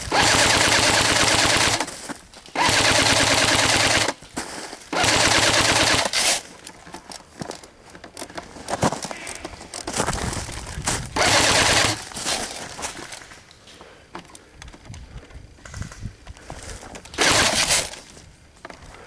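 Airsoft electric guns firing on full auto: several long bursts of rapid shots, each a second or two long, with scattered quieter shots and clicks between them.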